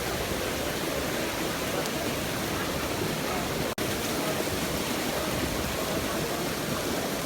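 Waterfall: a steady rush of falling water, with a momentary break about halfway through.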